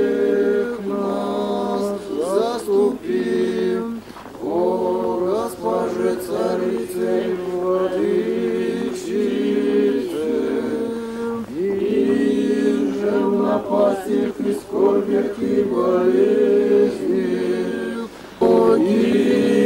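Several voices singing unaccompanied, holding long notes together and sliding between pitches, with short breaks between phrases.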